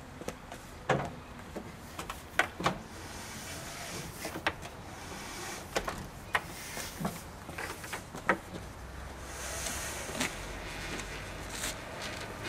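Plastic sit-on-top kayak being handled on a pickup's roof rack: a string of sharp knocks and clunks as the hull bumps the rack and truck, with a longer sliding scrape about nine seconds in as it is pulled back off the rack.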